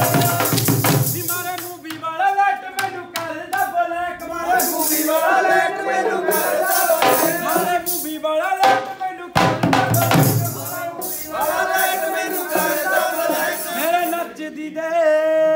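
Punjabi folk boliyan: a male voice sings over the clack of a wooden sapp clapper and the jingle of chimta tongs. A dhol beats loudly at the start and again briefly about two-thirds through.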